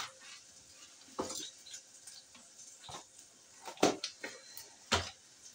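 Dishes and utensils clinking and knocking in a kitchen: four or five separate sharp knocks, roughly a second apart.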